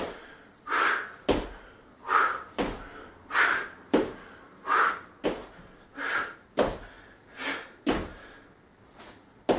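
Feet landing with a thud on an exercise mat about every second and a quarter during repeated jump squats with half turns, each landing just after a hard huffed breath out.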